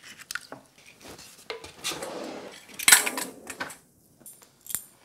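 Kitchen handling sounds as an egg is separated over small bowls: light clinks and knocks of the bowls and eggshell, a brief scraping rustle about two seconds in, and a sharper knock about three seconds in.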